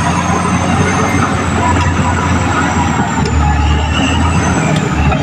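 Caterpillar D6R XL crawler bulldozer working: a steady diesel engine drone mixed with the clatter of its steel tracks.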